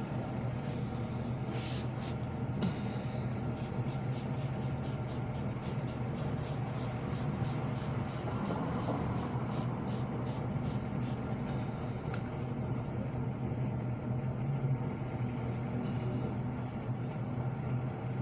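A steady low mechanical hum, with a run of faint quick clicks, about three a second, from a few seconds in until past the middle.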